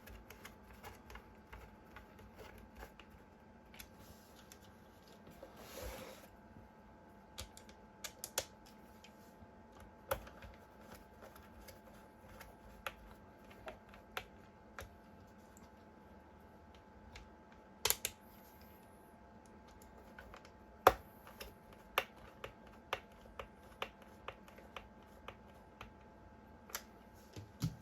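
Irregular light clicks and taps of screws and a screwdriver on the plastic battery case as it is screwed back together, with a couple of louder knocks about two-thirds of the way through.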